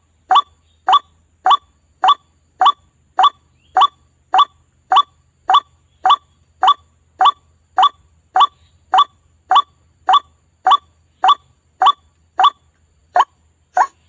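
White-breasted waterhen (ruak-ruak) call played as a bird lure: one short, harsh note repeated at a steady, even pace, a little under two notes a second.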